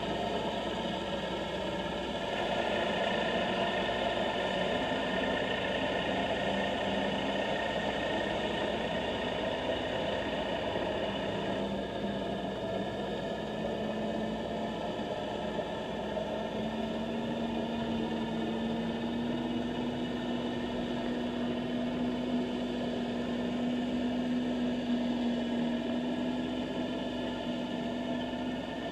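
Steady engine hum heard underwater, muffled, with one low tone slowly rising in pitch over the span.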